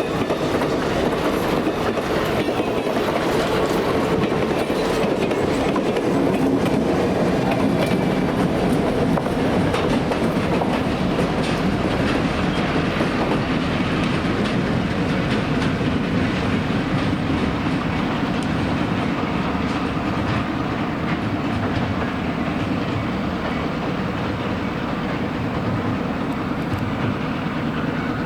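A train's cars rolling past, their wheels clicking over rail joints in a steady rumble that eases a little near the end.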